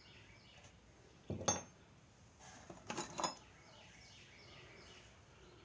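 Small metal tools and parts clinking against each other as they are handled and sorted in an old toolbox: one sharp clink about a second and a half in, then a few quicker clicks and clinks around three seconds in.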